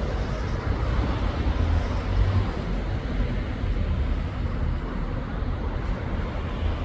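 Steady low rumble of outdoor noise with a faint even hiss above it, no distinct events.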